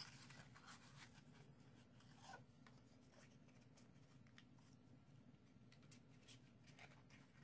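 Near silence: faint rustles and light taps of cardstock being handled and folded into a loop, over a low room hum.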